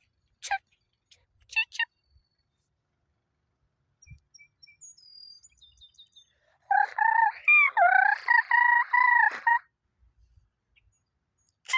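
Birds calling: a couple of short calls early, faint high chirping, then a rooster crows loudly for about three seconds, followed by one more short call near the end.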